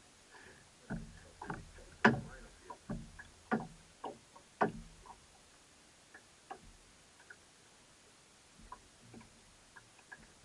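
Irregular knocks and clicks on a small fishing boat as gear is handled at the side, about half a dozen in the first five seconds with the loudest about two seconds in, then only occasional faint ticks.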